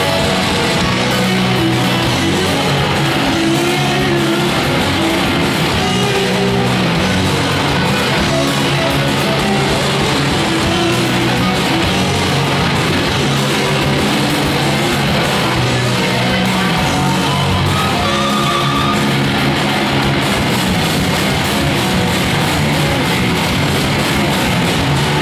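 Live garage rock band playing loud and steady: electric guitars and a full drum kit.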